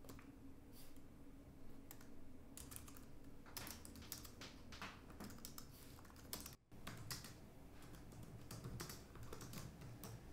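Faint typing on a laptop keyboard: quick, irregular key clicks in runs.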